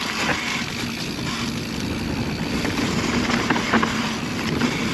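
Mountain bike rolling fast down a dirt singletrack: a steady rush of knobby tyres on dirt and wind on the action camera's microphone, with scattered sharp clicks and rattles from the bike over the bumps.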